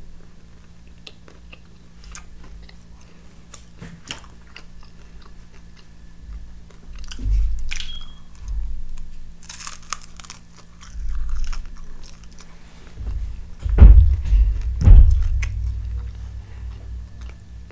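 Close-miked biting, crunching and chewing on a crispy fried chicken wing, with many small crackles and wet mouth sounds. Two heavy low thumps come close together about two thirds of the way through.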